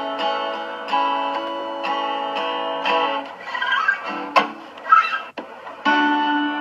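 Acoustic guitar strummed, a new chord about once a second and left to ring. Midway the playing thins out with a couple of sharp clicks, and a strong chord is struck again near the end.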